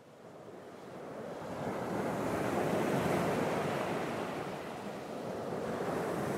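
A rushing, surf-like noise fades in from silence, swells to a peak about three seconds in, eases slightly and then holds steady, as an ambient intro to the song.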